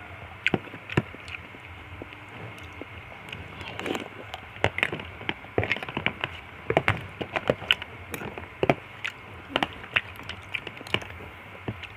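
Close-up eating sounds of fruit soup with nata de coco: irregular sharp clicks and mouth smacks while chewing, over a steady hiss, becoming more frequent about four seconds in.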